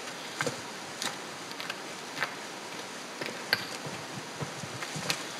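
Footsteps crunching over loose stones and dry grass, irregular sharp crunches roughly every half second to a second, over a faint steady outdoor hiss.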